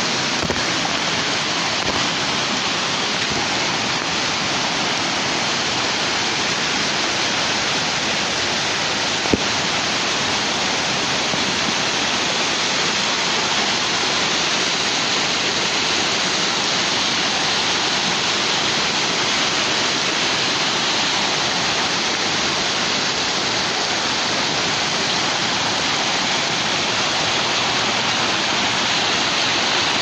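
A waterfall pouring off a rock overhang and splashing into a rocky stream: a steady rush of falling and churning white water.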